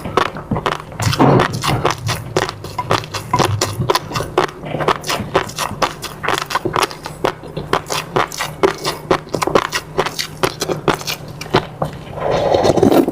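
Close-miked eating sounds: rapid, irregular chewing and mouth clicks, with one longer, louder sound near the end.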